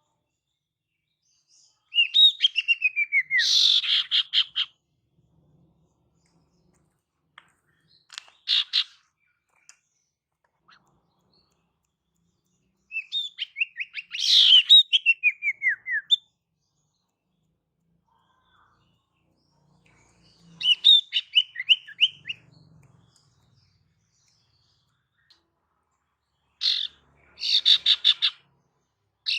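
Female common iora (sirtu) calling in five separate bursts a few seconds apart. The bursts are runs of quick notes falling in pitch and rapid rattling trills.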